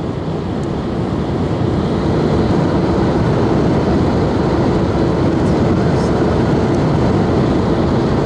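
Steady rumble of a Union Pacific double-stack intermodal freight train running past, mixed with the road and wind noise of a moving car from which it is heard. The sound grows louder over the first two seconds, then holds level.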